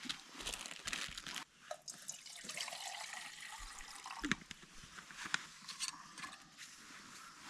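Water being poured and splashing into a pot or container, with scattered clicks and knocks of camping gear being handled.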